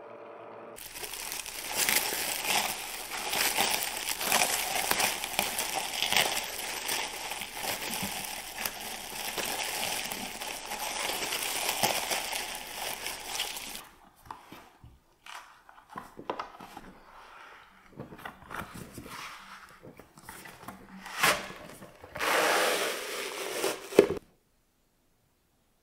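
Plastic cling film crinkling loudly as it is pulled and pressed down over glass measuring jugs of liquid glaze. After about 14 seconds it gives way to softer, scattered rustles and clicks, with a sharp click and a brief louder noise near the end before it stops.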